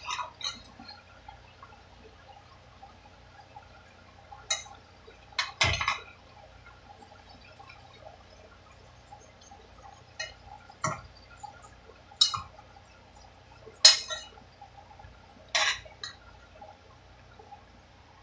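Metal fork stirring and tossing chopped vegetables in a nonstick saucepan, with irregular scrapes and clinks against the pan, the loudest about six and fourteen seconds in.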